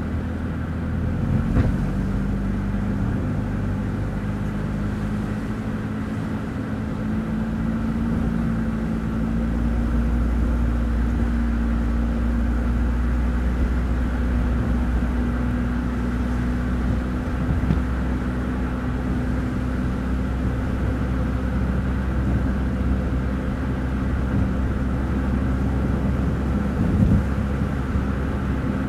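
Car driving along: a steady low engine hum with road and tyre noise, the engine note drifting slightly up and down.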